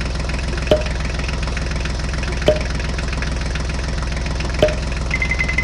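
Tractor engine idling steadily, a sound laid over the toy play. Three sharp clicks about two seconds apart, as miniature bricks are dropped into the toy tractor's plastic trolley, and a brief rapid high trill near the end.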